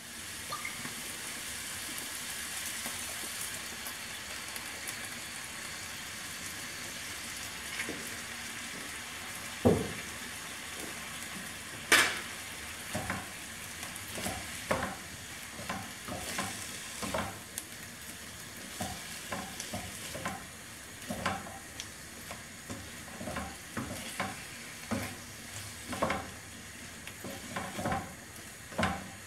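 Chicken, apple and onion sizzling in a frying pan with freshly added balsamic vinegar. A wooden spoon stirs them, knocking and scraping against the pan again and again, with two sharper knocks as the stirring begins.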